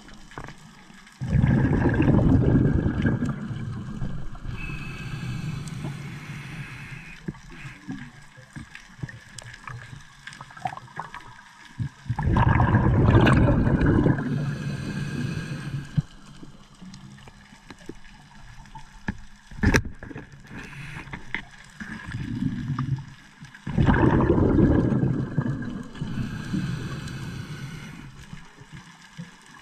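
Underwater bubbling from a diver's breathing, heard from the diver's own camera. Three loud gushes of bubbles come about eleven seconds apart, each starting suddenly and fading over two to three seconds. A quieter hiss runs between them, and there is one sharp click near the middle.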